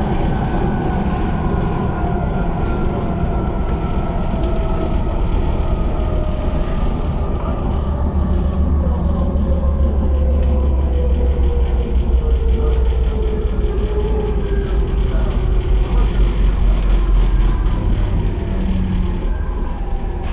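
AnsaldoBreda driverless metro train running through a tunnel over a low rumble of wheels on rail, its traction motors whining in a steadily falling pitch as it slows for a station stop.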